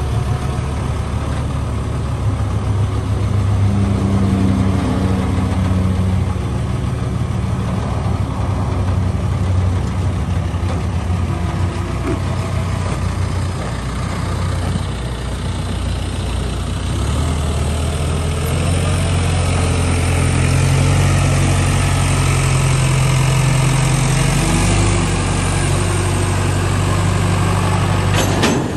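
Gehl telehandler's diesel engine running steadily as the machine drives along; a little past halfway its engine speed rises and holds there.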